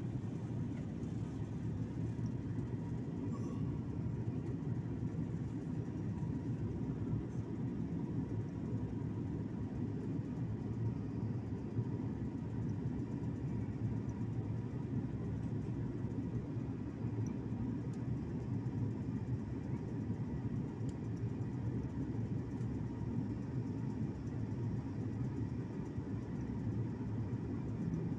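Airliner cabin noise on descent: a steady, even rumble of engines and airflow heard from a window seat, with a low hum and no changes.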